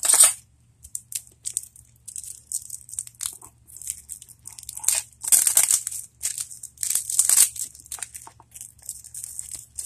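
Cellophane shrink-wrap being torn and crinkled off a deck of game cards. It comes as a string of short crackling rips with brief pauses between them, busiest in the second half.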